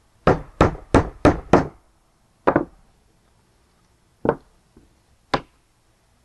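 Hammer tapping small nails into a wooden Langstroth beehive frame. Five quick taps come about three a second, then three single taps spaced out over the following seconds.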